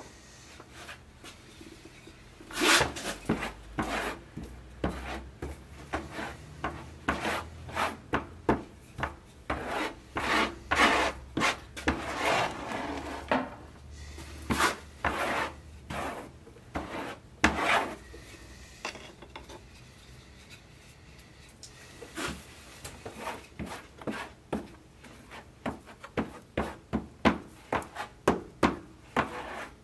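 A hand-held block rubbed over the thin wooden core of a sword scabbard in a long, uneven series of scraping strokes. The strokes pause for a few seconds past the middle, then come quicker and shorter near the end, about two a second.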